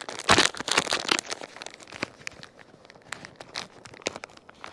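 Plastic packet of long-grain rice crinkling and rustling as the rice is added to the pot, loudest a moment after the start, with scattered sharp ticks throughout.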